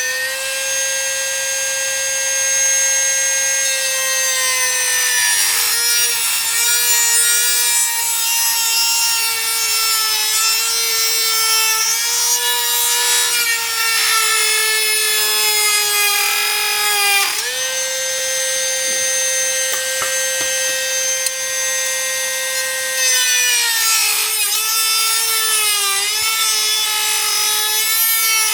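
A small high-speed power tool cutting a fibreglass panel: a steady high motor whine with rasping cutting noise. The whine sags in pitch as the cutter bites, rises back to free-running speed about 17 seconds in, then sags again when cutting resumes.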